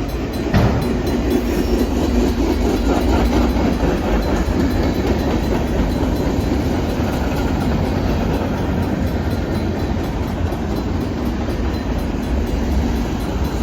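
Cars of a Norfolk Southern manifest freight train rolling past: a steady rumble of wheels on rail, with a sharp clank about half a second in.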